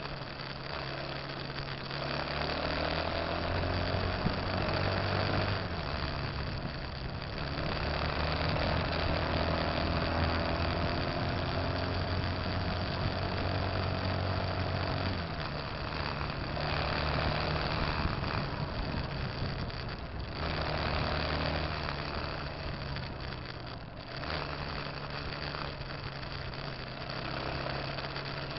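Motorcycle engine running on the move with wind rush. Its pitch climbs slowly as it accelerates and drops sharply about halfway through, at a gear change or when the throttle is closed.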